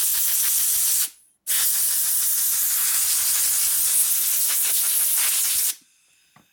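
Blow gun on regulated shop compressed air hissing in two blasts, a short one that stops about a second in and a long one of about four seconds, blowing loose dirt off a pump seal.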